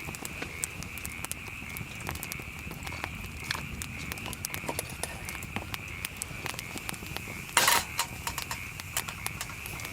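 Wood campfire crackling, with many small irregular snaps and one louder hissing burst about three-quarters of the way through, over a steady high-pitched chirring chorus in the background.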